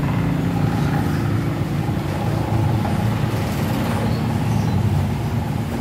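A steady low engine hum, unchanging throughout.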